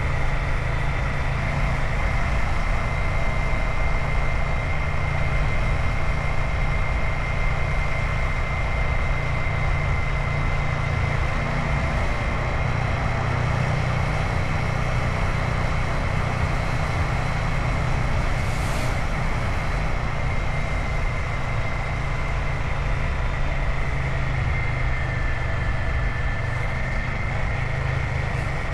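Royal Enfield Himalayan 450's single-cylinder engine running steadily while riding on the road, with wind and tyre noise and a steady high whine. A brief hiss about two-thirds of the way through.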